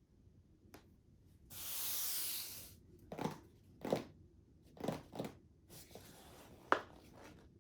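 Product box being opened by hand: one long tearing rip lasting about a second, then several short knocks and rustles of the packaging being handled.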